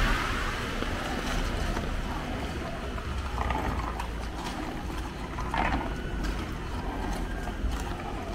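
City street background in light rain: a steady low rumble of traffic that fades in the first second as a passing vehicle moves off, with a few faint short ticks.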